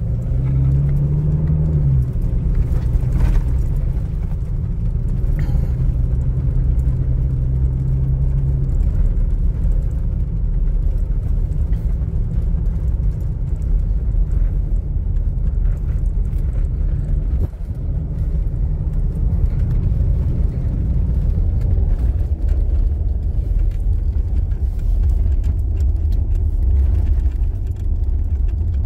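Inside the cab of a 2021 Toyota Hilux driving on a dirt road: a steady low rumble of tyres and engine. The engine note rises and settles in the first couple of seconds, then holds steady for several seconds. There is no clunk from the freshly repaired steering column, which the mechanic says is now silent.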